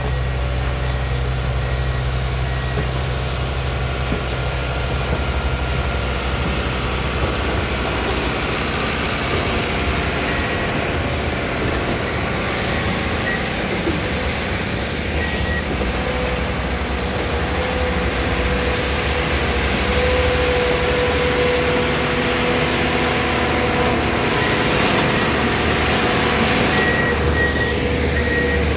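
Self-propelled track maintenance machines running past on the rails: a steady diesel engine drone with a short high beep repeating on and off, louder toward the end.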